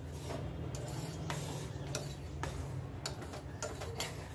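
Milk at the boil in a pan over a gas flame: irregular light pops and ticks, about one a second, over a steady low hum.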